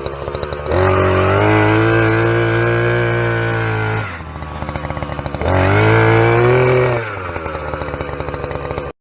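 Harbor Freight Predator post hole auger's small two-stroke gasoline engine idling and revved up twice under throttle, dropping back to idle between. The sound cuts off suddenly near the end.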